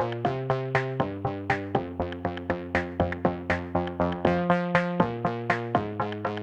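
Electronic background music: synthesizer chords with a steady drum-machine beat of about four hits a second.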